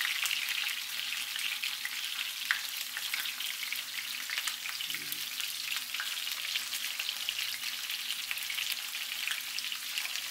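Salmon fillets frying in hot oil and melting butter in a cast-iron skillet: a steady, dense sizzle and crackle of spattering fat.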